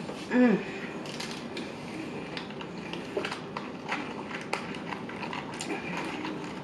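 Close-up chewing of a McDonald's fast-food meal: irregular wet mouth clicks and smacks, with a short hummed "mm" of enjoyment at the start.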